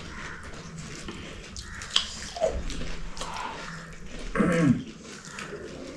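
A person's brief wordless vocal sound, falling in pitch, a little past the middle, over faint background noise, with a small click about two seconds in.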